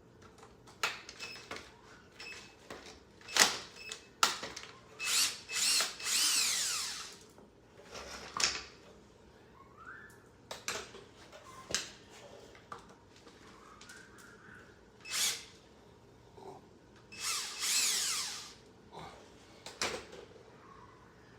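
Hand tools working on the skid steer's metal windshield-frame hardware: scattered clicks and knocks with short scraping squeals as screws and fittings are turned, the longest about six seconds in and again later on.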